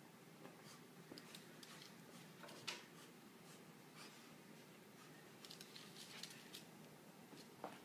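Near silence, with faint scattered clicks and scuffles of a small dog's paws on a hardwood floor as it tugs a cloth toy; one slightly louder click comes a little under three seconds in.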